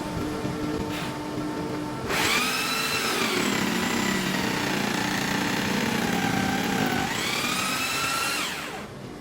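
Electric jigsaw motor switching on about two seconds in, its pitch sagging as it cuts under load, then speeding back up and shutting off just before the end.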